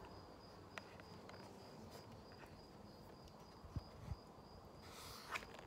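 Near silence with a cricket's faint steady high trill, and a couple of soft low thumps about four seconds in.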